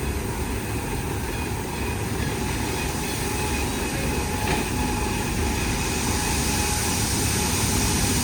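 An engine running steadily: a low rumble with faint steady whines above it, slowly growing louder.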